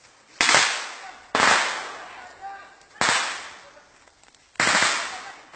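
Four single gunshots, irregularly spaced over about four seconds, each followed by an echo that dies away over roughly a second.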